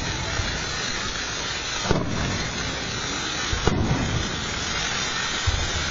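Fireworks finale: a dense, continuous crackle and hiss of many shells, with sharp bangs about two seconds in and again near the middle.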